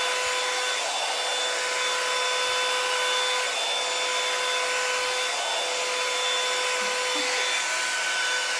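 EZ Detangler brush-style blow dryer running: a steady rush of air over a constant motor whine.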